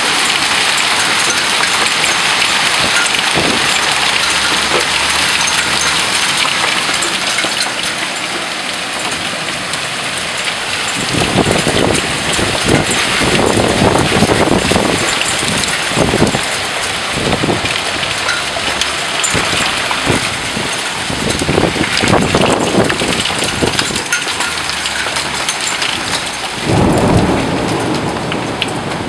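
Hailstorm: hail and heavy rain pelting down in a dense, steady hiss with scattered sharp ticks. From about ten seconds in, repeated bursts of low rumble swell and fade over it.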